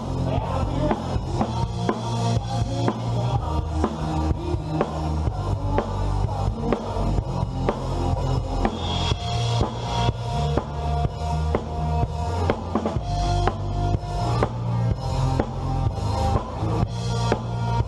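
Band music: a drum kit keeping a steady beat with bass drum and snare, over a bass line and held pitched notes.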